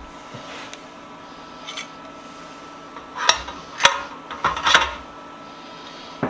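A few sharp metal clinks and clanks as metal parts are handled and set down, bunched together about halfway through, over a faint steady shop hum.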